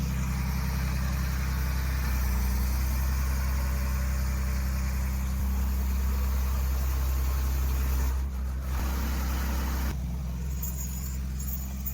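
A motor vehicle's engine running steadily with a low, even hum.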